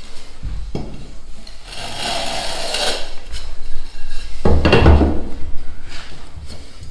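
Gypsum decorative-stone tile being rubbed edge-down against a concrete floor screed to grind its edge down, in two gritty scraping passes, the second louder, with a few knocks.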